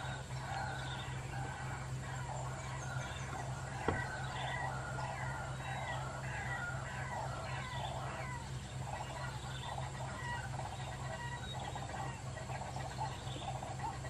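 White-breasted waterhen calls, a steady run of repeated croaking notes, played by an electronic bird-call lure speaker to draw the birds in. A steady low hum runs underneath, and there is a single short click about four seconds in.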